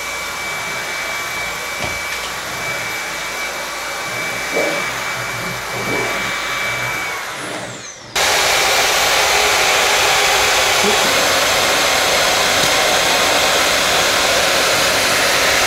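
Cordless stick vacuum cleaner running with a steady high whine. About eight seconds in the whine drops away and the sound jumps abruptly to a much louder, even rushing noise that holds steady.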